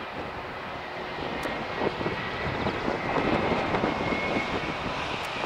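Boeing 767-400's twin jet engines at taxi power: a steady whine over a noisy rumble, growing a little louder about two seconds in.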